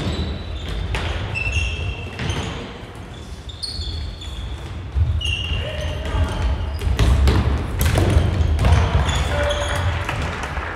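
Floorball play on a wooden sports-hall court: sneakers squeaking, plastic sticks and ball clacking, and players calling out.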